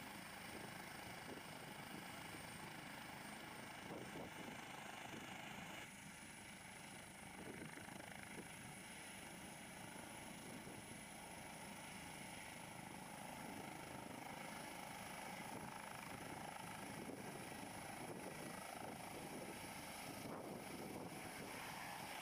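Airbus H145 twin-turbine helicopter lifting off and climbing away, its rotor and turbines running steadily under some wind on the microphone. A high whine sets in about six seconds in, and the sound grows slightly louder toward the end.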